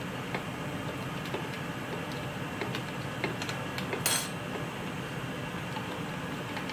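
A spatula stirring flan powder into a little milk in a glass bowl: soft scraping with scattered light clicks against the glass, and a short, louder scrape about four seconds in.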